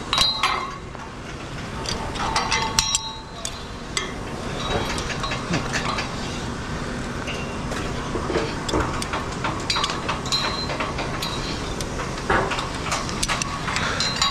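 Climbing hardware and hands clinking and knocking irregularly against the metal tubes of a truss tower during a descent, over a steady background noise.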